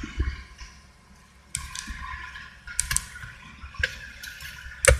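Inside a slowly moving car: low engine and road rumble under a steady hiss, with a few sharp clicks in the second half.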